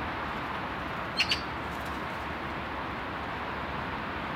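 A bird chirping twice in quick succession, about a second in, over a steady hiss.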